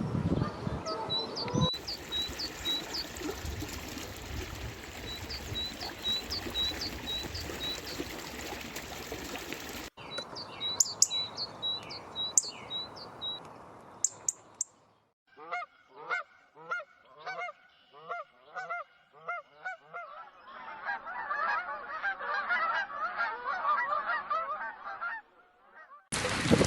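Waterfowl calling: a steady series of honks, about two a second, followed by a flock's dense, overlapping calls. Before them, a small bird gives repeated short, high chirps.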